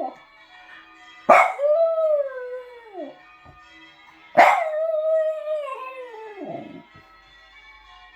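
A small Jug (pug × Jack Russell cross) dog howling twice, each howl about two seconds long. Each begins with a sharp yelp and sags downward in pitch. Church bells ring faintly and steadily underneath.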